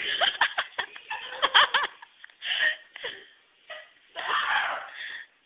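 Laughing in rapid, stuttering bursts for about two seconds, then scattered, breathier laughs.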